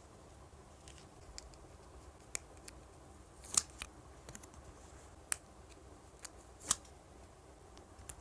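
Paper sticker flakes being handled, peeled and pressed down onto a journal page: scattered light crinkles and crisp ticks, the sharpest about three and a half and six and a half seconds in.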